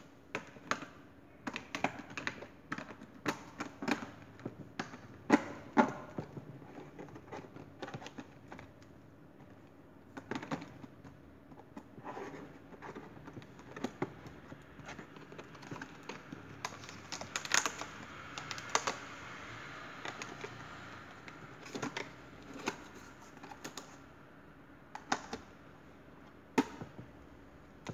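Irregular light clicks and taps of small steel drill bits and accessories being handled in a hinged clear plastic accessory case, with a stretch of softer rubbing around the middle.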